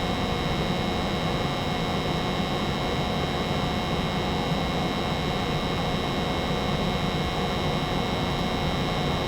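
A 90% American Standard gas furnace running with its burners firing and its blower motor on: a steady, even hum with fixed tones.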